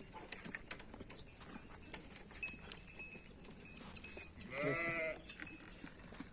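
A goat bleats once, a short wavering call about four and a half seconds in, over scattered light clicks.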